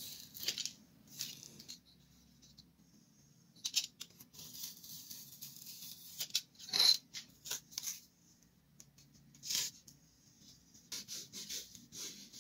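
Craft knife drawn along a steel ruler through foam board, a series of short scratchy cutting strokes, the loudest about seven seconds in, with rustling as the cut foam pieces are handled.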